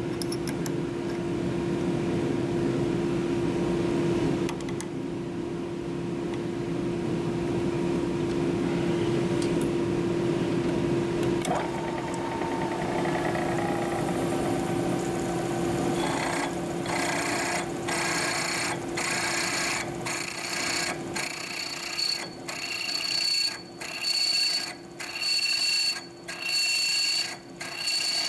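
Drill press running with a drill bit cutting into a hard chrome-plated steel shaft. About halfway through, a high-pitched chatter sets in that comes and goes roughly once a second, as the bit cuts into a workpiece that is not held rigidly.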